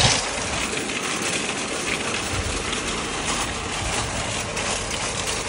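A line of nested red plastic-and-wire shopping carts rolling over asphalt, wheels and baskets rattling and clattering together, with a louder clank right at the start.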